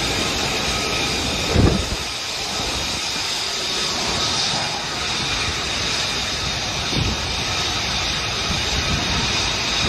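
Steady jet aircraft engine noise, a loud hiss with faint whining tones. A heavy low thump comes about a second and a half in, with a lighter one near the end.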